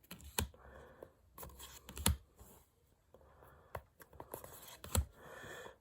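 Trading cards being handled and flipped through by hand: soft sliding and rustling, with a few sharp snaps of card edges, about three in all.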